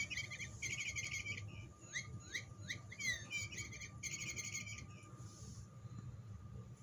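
Battery-powered electronic cat toy playing rapid chirping and tweeting bird sounds in repeating sequences. The sounds thin out after about five seconds.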